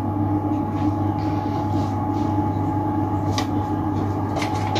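Steady mechanical hum of a running appliance: a low drone with a thin higher tone held over it, and a few faint soft clicks near the end.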